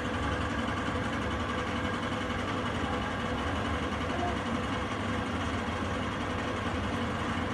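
Steady low mechanical rumble with hiss and a faint constant hum, unchanging in level throughout.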